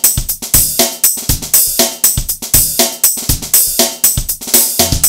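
Background music with a steady drum-kit beat: bass drum, snare and hi-hat, about two strong hits a second.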